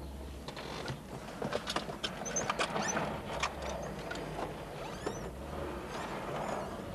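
Inside a moving car: steady road and engine noise with scattered clicks and rattles, and a few short high chirps and squeaks.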